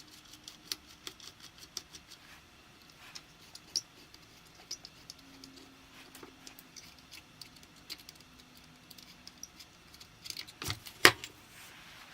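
Small metal parts and tools clicking and tapping as a rifle and its scope mount are handled and worked on, with one louder sharp knock near the end.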